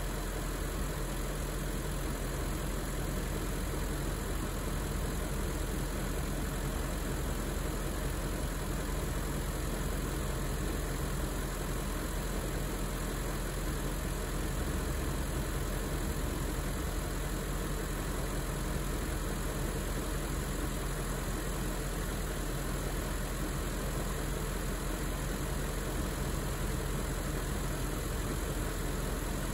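BMW E38 740i's 4.4-litre V8 (M62TU) idling steadily while warming up after a cold start.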